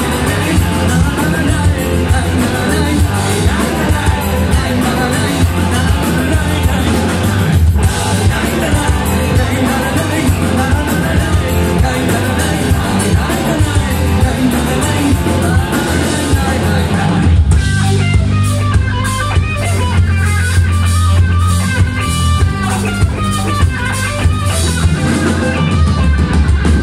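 Live rock band playing: electric guitar, bass guitar and drum kit with a male vocalist singing. About two-thirds of the way in, the band drops into a sparser, thinner passage.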